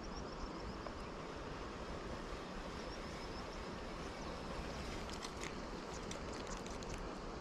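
River water rushing steadily, with faint high chirps repeating now and then and a few light clicks about five seconds in.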